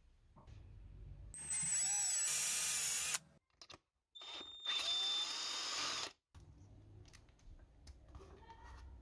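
Cordless drill running in two bursts of about two seconds each, with a high steady whine, spinning a small brass part in its chuck that is held with pliers.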